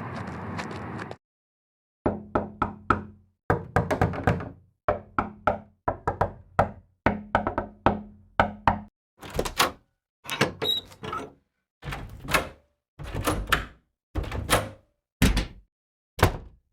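Repeated knocking, first in quick runs of three or four knocks, then as more spaced single knocks. Before it, a steady noisy sound cuts off suddenly about a second in and is followed by a brief silence.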